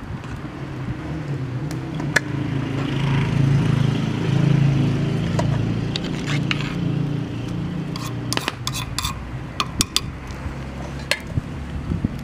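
A metal spoon clinks and knocks against a cooking pot as the food in it is stirred: about ten sharp clinks, several in quick succession past the middle. A steady low rumble runs underneath, loudest in the middle.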